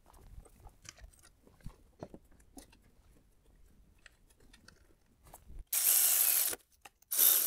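A Milwaukee cordless electric ratchet runs twice, about a second each time, in the last two seconds, driving an alternator mounting bolt in. Before that there are only faint clicks and taps as the bolt is threaded in by hand.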